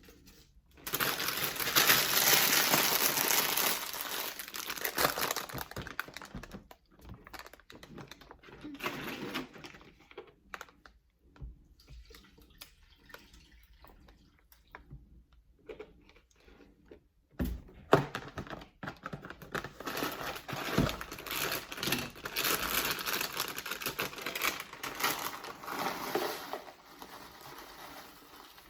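A plastic bag of frozen spinach crinkling and rustling as it is handled, in two long spells, with scattered clicks and a sharp knock between them.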